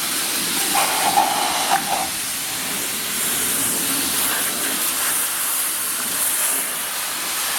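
Car wash high-pressure wand spraying water onto a BMX bike in a steady hiss, with a brief tone about a second in.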